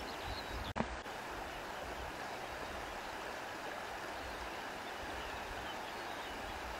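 Steady rushing of flowing water from a stream or river, with a brief click and dropout just under a second in.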